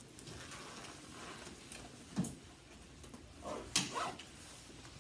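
A few scattered knocks and rustles over faint room noise, the loudest knock a little before four seconds in.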